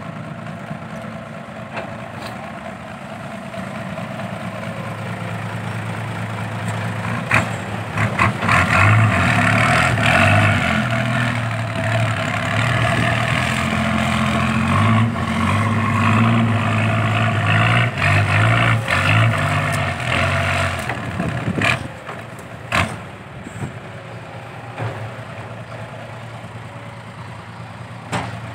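Isuzu Deca dump truck's diesel engine blowing out through triple straight exhaust tips, running steadily and then revving hard under load for about fifteen seconds as the truck pulls through loose sand, before easing back. A few sharp clicks stand out near the start and end of the hard running.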